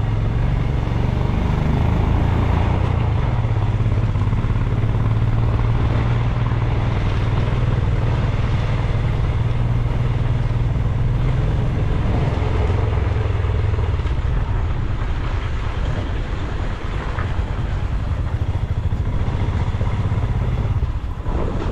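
Motorcycle engine running steadily while riding, with road and wind noise mixed in.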